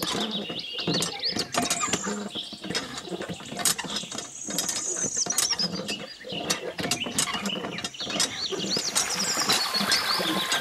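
Lever of a miniature hand pump being worked up and down by hand, making repeated clicks and squeaks at its pivot, with high bird-like chirps throughout. Water begins to trickle from the spout near the end.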